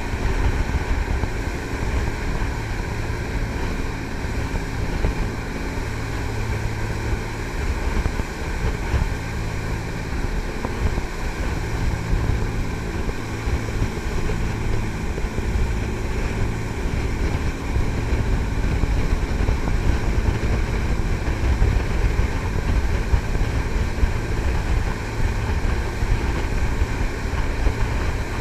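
Jet boat's three Cummins marine diesels driving Hamilton water jets, running steadily under way, with rushing water and wind buffeting the microphone.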